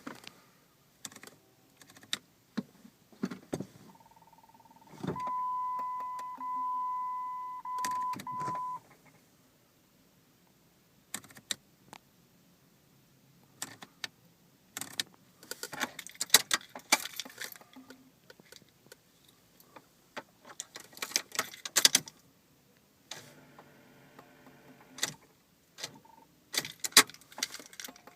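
Cabin of a 2004 Jeep Grand Cherokee that won't start: clicks and key rattles as the ignition and switches are worked, with a steady electronic warning tone of about four seconds, broken by a few brief dropouts. The owner traced the fault to a dirty battery terminal connection.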